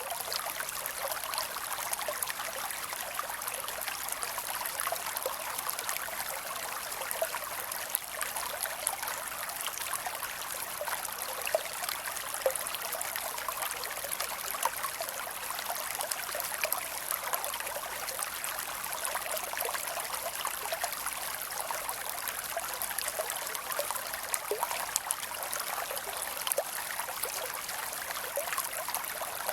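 Creek water flowing and trickling steadily over rocks, a constant hiss with many small splashes and gurgles.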